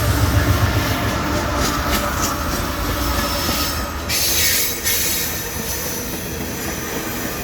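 Empty ethanol train's tank cars rolling slowly on the rails with steel wheels squealing. A deep rumble fades over the first couple of seconds, and a short burst of high-pitched noise comes about four seconds in.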